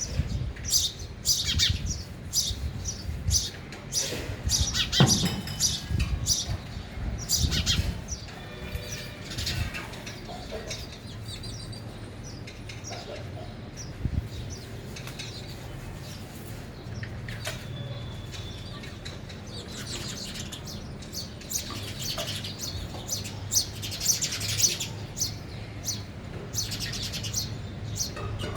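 House sparrows chirping again and again in short notes, with wing flutters and soft low thumps, busiest in the first several seconds.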